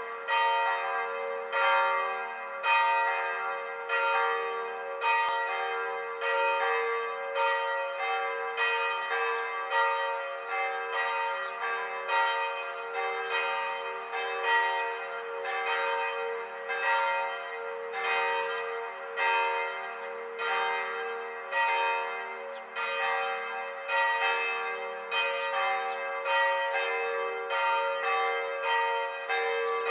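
Church bells ringing, with strikes about once or twice a second in an uneven pattern, each ringing on into the next.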